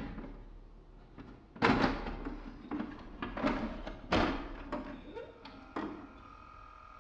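A series of sudden thuds, each dying away, the two loudest about a second and a half and about four seconds in, with smaller hits between them. A faint steady tone comes in near the end.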